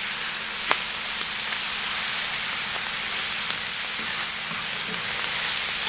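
Chicken thigh strips and sliced onions sizzling on the hot steel plate of a fire-plate grill, a steady hiss, with a sharp click under a second in as a metal spatula strikes the plate.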